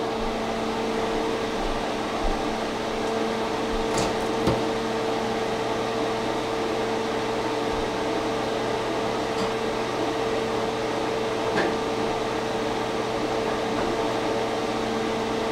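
Steady electrical hum with a fan-like rush from a running kitchen appliance, with a few faint clicks and knocks.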